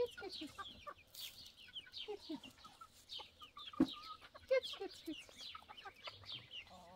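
Chickens clucking, with many short high chirps throughout, and one brief knock just before four seconds in.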